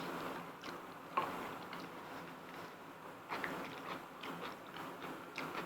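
Quiet eating sounds of black bean noodles: soft chewing, slurping and small wet clicks of mouths and utensils.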